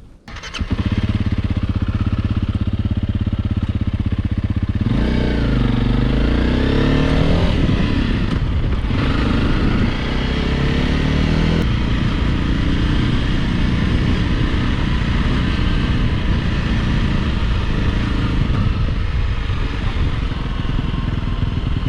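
Honda CRF Rally single-cylinder motorcycle engine starting up about half a second in and running steadily, then revving up around five seconds in as the bike pulls away and keeps running as it is ridden.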